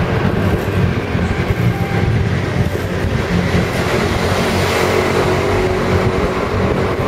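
Loud, steady rumbling noise inside a road tunnel while riding a bicycle through it, heavy in the low range and even throughout.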